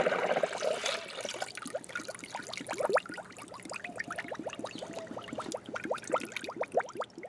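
Coolant poured from a plastic jug into a spill-free funnel full of coolant while refilling the cooling system. A heavy splashing pour fades after about a second to a thin stream and drips, with many quick liquid plinks and gurgles in the funnel.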